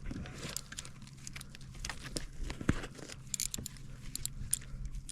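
Irregular clicks, scrapes and rustles of fishing gear being handled at close range while tangled line is worked loose, over a steady low hum.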